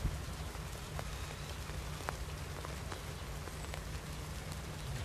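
Diesel engines of a BR Class 101 diesel multiple unit running, a steady low rumble, over a steady hiss with scattered light ticks.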